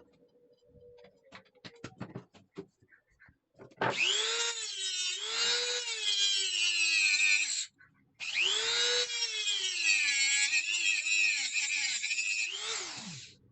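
A few light knocks of handling, then a small high-speed power tool switched on twice. Its motor whines and its pitch dips and recovers as it is pressed into the work; the second run ends with the pitch falling as the tool winds down.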